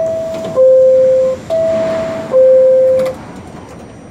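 R68A subway car's door-closing chime: a two-tone chime alternating high and low, each tone held under a second, sounding twice over before it stops. The car doors slide shut near the end.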